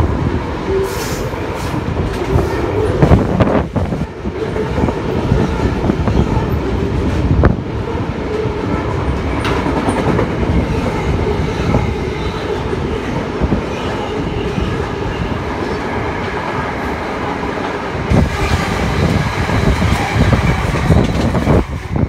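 Loaded container wagons of a freight train rolling past, a steady low rumble of steel wheels on the rails with occasional knocks, which eases off near the end as the last wagon goes by.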